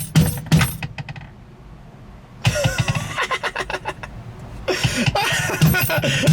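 Gear shifter rattling and clicking as it is shaken, in quick metallic runs with a short pause about a second in.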